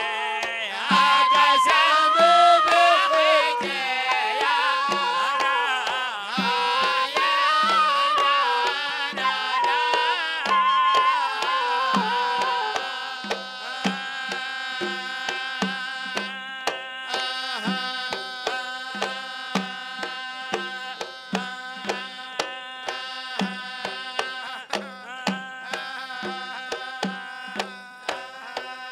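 Hadrami zarbadi dance music. A melody with wavering pitch plays over barrel drums for the first twelve seconds or so. After that a steady held chord sounds over regular drum strokes.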